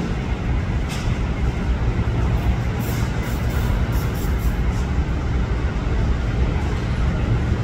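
Diesel freight locomotive running as it rolls slowly toward the platform, its engine giving a steady low sound.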